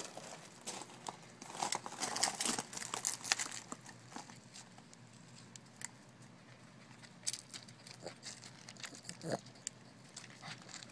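Irregular crackling and crunching of dry leaves and gravel being disturbed, busiest in the first few seconds and sparser later, with a soft knock near the end.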